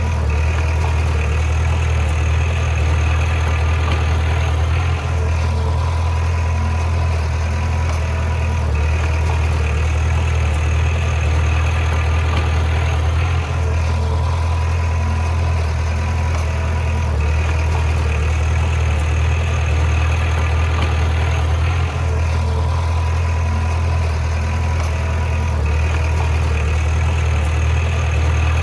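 Heavy diesel engine of a bulldozer running steadily under a deep low hum, with slight changes in its sound every few seconds.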